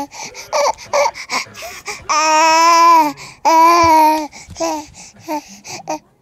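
Baby babbling right at the microphone: a run of short syllables and two long, drawn-out vocal sounds, the first about two seconds in and the second just after three and a half seconds.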